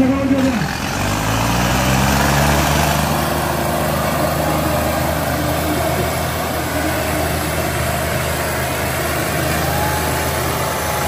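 Two tractor engines, a turbocharged Sonalika DI-35 Yodha and a Farmtrac 6055, rev up about a second in and then run hard and steady at full load as the chained tractors pull against each other in a tug-of-war.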